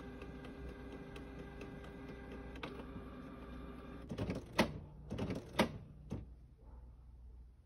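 Printer running a print job: a steady mechanical hum with faint regular ticking, then a series of louder clunks and rattles about four to six seconds in, after which it stops.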